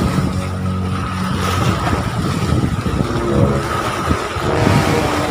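Strong wind buffeting the microphone, with choppy lake waves breaking and splashing against shoreline rocks: a continuous loud rush that surges and eases.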